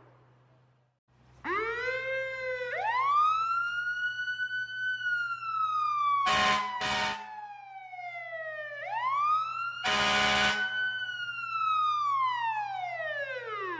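Fire truck siren winding up about a second and a half in, wailing slowly up and down twice, and winding down near the end. Two short horn blasts come in the middle and a longer one about ten seconds in, over a low steady hum.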